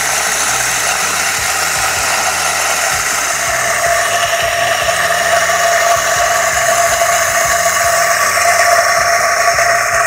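Lomax HK600 electric coffee grinder running at its finest setting, grinding a load of coffee beans: a steady motor whine under a loud crackly grinding noise ('kresek-kresek'), the sound of beans still passing through the grinder.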